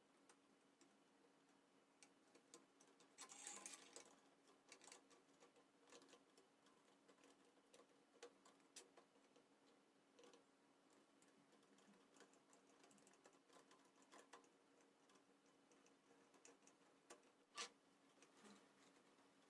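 Faint, scattered light clicks and taps of small hard objects, with a short clatter about three and a half seconds in and a sharper click near the end, over a steady faint hum.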